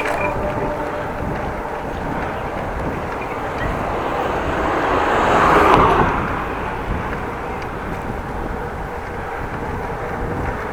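Steady wind and road noise of a bicycle ride. A passing vehicle swells to the loudest point about five to six seconds in, then fades away.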